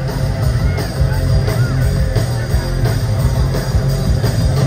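Live rock band playing loud: electric guitar, bass guitar and drums with a steady beat.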